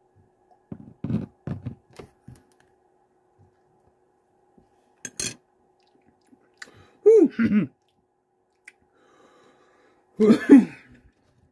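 A man's wordless pained groans, two of them with falling pitch about seven and ten seconds in, reacting to the burn of a spoonful of hot sauce. Before them, a few light knocks and clinks and one sharp click from handling the spoon and bottle.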